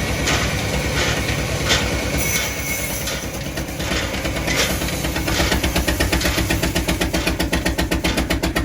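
Sawmill machinery running with a steady rhythmic pulsing that grows plainer about halfway through, with a few sharp knocks in the first half.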